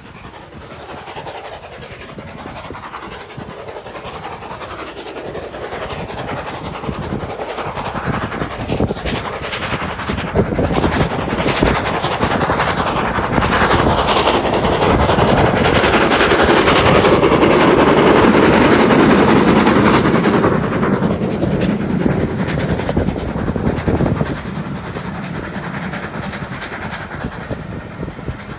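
Steam locomotive working hard with a passenger train, its chuffing growing steadily louder to a peak a little past the middle as it passes, then easing off as the coaches roll by with a clickety-clack over the rail joints.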